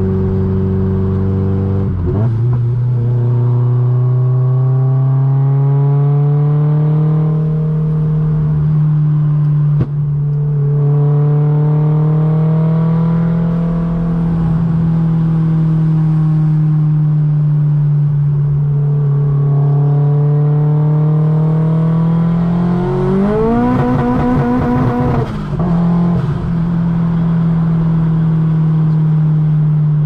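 Mk2 Golf GTI's big-turbo 1.8T four-cylinder engine running on the road. The engine note climbs in pitch and drops back several times as the car accelerates and shifts. About 23 seconds in it rises quickly to higher revs, holds for a couple of seconds, then drops.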